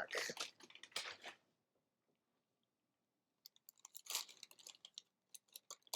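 Fast-food wrappers being handled, quiet crinkling and small crackling clicks in short spells, with a pause in the middle.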